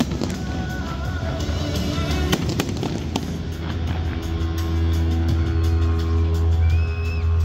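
Aerial fireworks bursting, with sharp bangs and crackling in the first three seconds, over music with a sustained deep bass and long held notes that carry on after the bursts die away.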